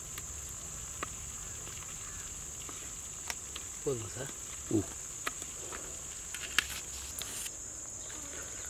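Steady high insect drone throughout, with scattered small clicks and knocks as a wooden stick pushes fried chicken from a clay pot onto a banana leaf. Two short sounds falling in pitch come about halfway through.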